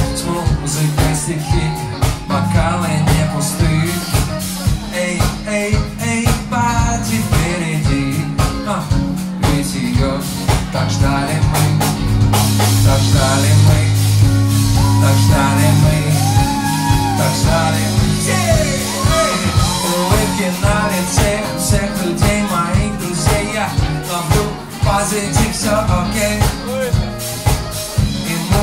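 Live band playing a song: a male lead vocal over electric bass and a drum kit, with a steady beat.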